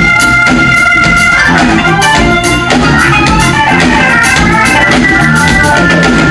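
Live blues band playing an instrumental passage: an organ holds chords over electric guitar, bass and drums.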